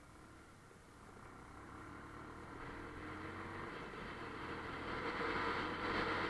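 Bajaj Pulsar 150's single-cylinder engine and wind rush heard from the moving motorcycle, growing steadily louder as the engine note rises and the bike picks up speed.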